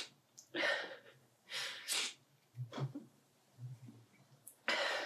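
A woman crying: a series of short, sharp sniffles and shaky breaths, with faint low whimpers between them.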